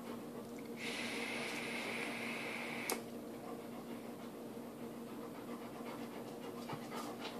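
Omega dripping atomizer's 0.2-ohm sub-ohm coil firing during a long draw: a hissing sizzle of about two seconds that ends with a click, followed by a soft exhale of the vapour. A steady low hum runs underneath.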